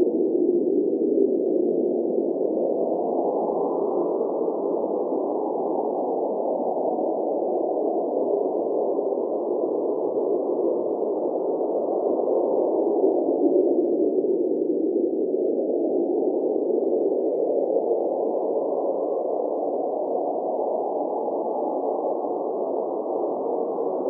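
Cold blizzard wind blowing, a steady low rush whose pitch slowly rises and falls in long swells, higher about four seconds in and again around twelve seconds, dipping around fifteen seconds.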